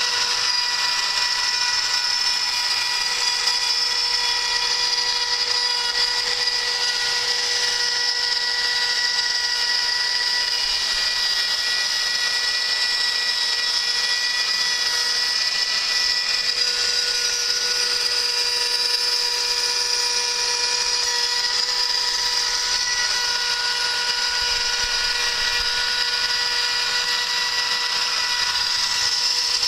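CNC router spindle milling 5 mm aluminium plate: a steady high-pitched whine with an even cutting noise.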